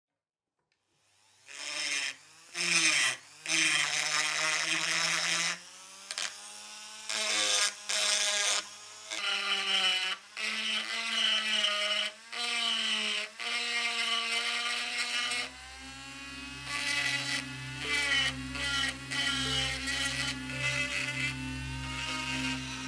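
Flexible-shaft rotary carving tool, its speed set by a foot pedal, burring into plaster: it whirs in bursts of a second or two, its pitch rising and falling as the pedal is pressed and eased. About two-thirds of the way through it settles into a steadier run with a low hum underneath.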